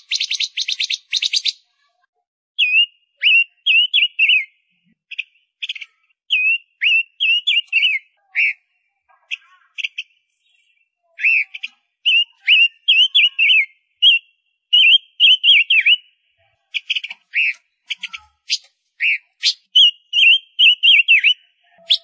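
Female Gouldian finch calling: short high chirps and quick notes that dip and rise in pitch, coming in clusters with pauses between, and a rapid buzzy rattle in the first second and a half.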